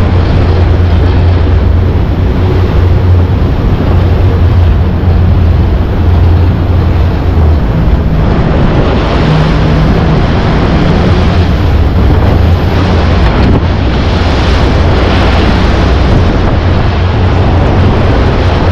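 Tour speedboat running at speed: a steady engine drone under heavy wind buffeting the microphone and rushing water.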